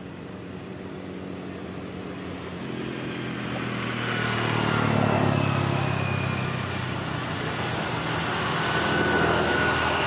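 A motor engine running, with its hum swelling to a peak about five seconds in, easing off, then swelling again near the end.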